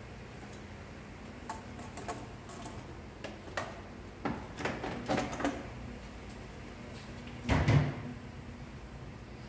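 Intercooler pipes and couplers being handled and fitted into a car's engine bay: scattered light knocks and clicks, a quick run of them about halfway through, then one heavier thump near the end.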